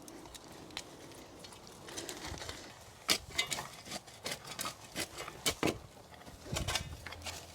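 Irregular scrapes and knocks of digging work with a shovel in soil, clustered in the second half, with a dull thud near the end.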